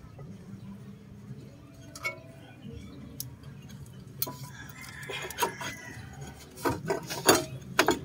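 Metal clinks and knocks of a car's brake caliper and pads being handled against the brake disc at a front hub, fitted back over the rotor. Scattered light clinks, then a cluster of louder knocks near the end.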